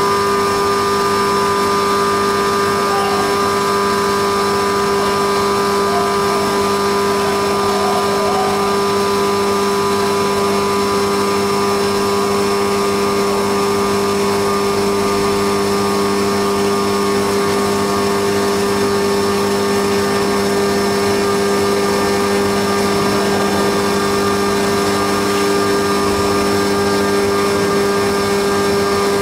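Haas CNC milling machine running steadily while it cuts, a constant whine of several fixed tones over a machining hiss.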